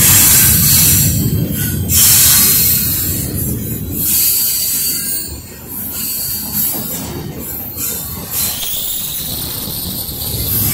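Double-stack intermodal freight train's well cars rolling past, wheels rumbling on the rails with a high-pitched wheel squeal and hiss, loudest at the start and again about two seconds in.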